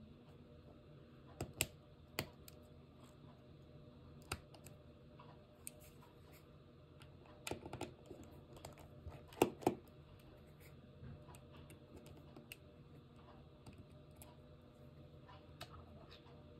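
Scattered clicks and keystrokes on a computer keyboard, some single and some in short runs of two or three, over a faint steady hum.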